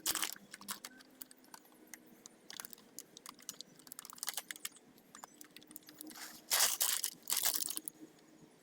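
Dry livestock feed and its bag being handled while calf feed is mixed: crunching and rattling of pellets with scattered clicks and rustling, and a couple of louder rustles about two-thirds of the way through.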